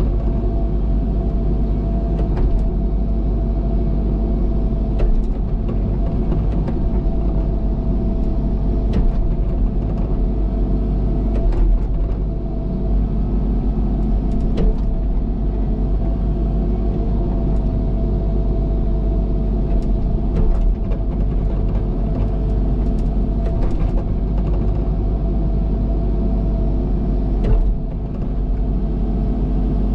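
Cat excavator's diesel engine running steadily while digging, with scattered sharp knocks and clanks from the machine working.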